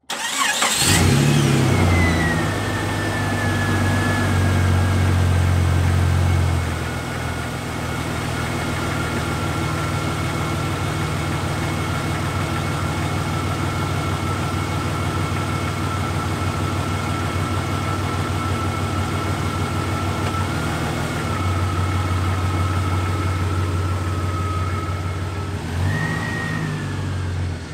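Jeep Cherokee XJ's 4.0-litre straight-six engine flaring up in revs about a second in, then idling steadily with a high whine that slowly settles lower in pitch. Near the end the engine revs up again as the Jeep moves off.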